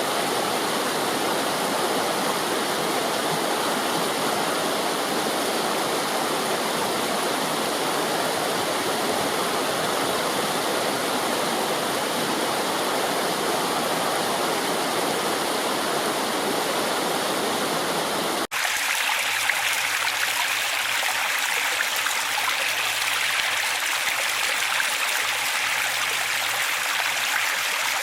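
Running water of a stream, a steady rush. About two-thirds of the way through the sound drops out for an instant and comes back as a brighter, thinner trickling rush: a cut to a different water recording.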